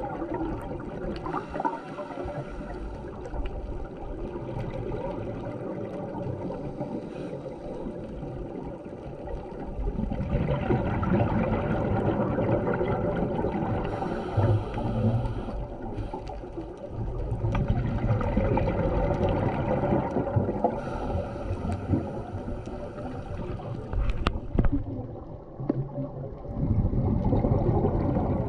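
Underwater sound of scuba diving: a scuba regulator's exhaled air bubbles gurgling in several long, louder bursts a few seconds apart, over a steady hum and noise.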